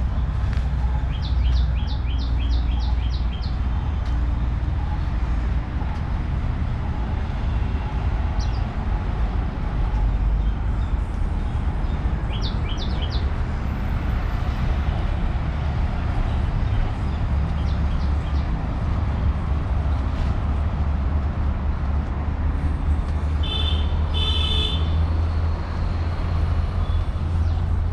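Birds chirping in quick runs of short, high notes, with a harsher call a little before the end, over a steady low rumble.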